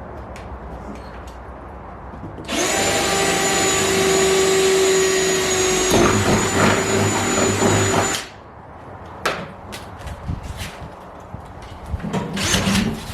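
Power drill running steadily at one speed for about six seconds, drilling through the spoiler for its rivets, then stopping abruptly, with a few light knocks afterwards.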